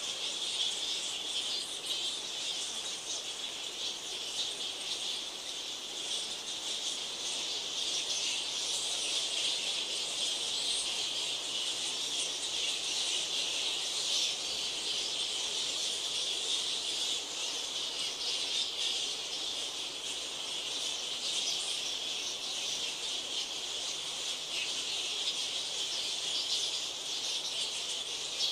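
Continuous high-pitched din of a large roosting colony of straw-coloured fruit bats (Eidolon helvum), many squeaking calls merging into one steady chatter.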